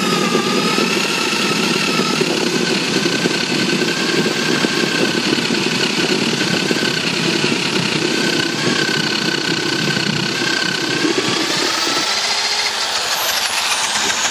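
Homemade apple scratter running under power, its cutter grinding a hopper-load of apples into pulp, with a steady hum whose pitch wavers slightly under load. About twelve seconds in the low grinding drops away as the hopper runs empty and the machine runs on lighter.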